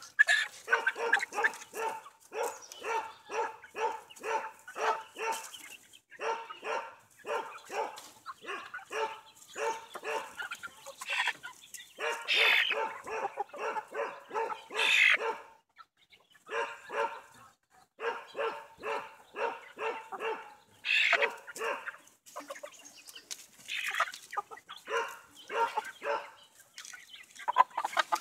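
Hens clucking in quick runs of about three calls a second, broken by short pauses, with a few louder, longer squawks; the birds are being caught and held by hand.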